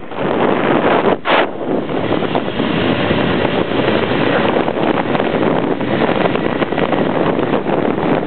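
Wind buffeting the camera microphone, a steady rushing noise that briefly drops out about a second in.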